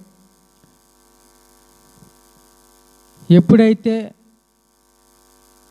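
Faint, steady electrical mains hum picked up through a corded microphone and amplifier, a stack of even tones that runs under the pause. A man speaks one word about three seconds in.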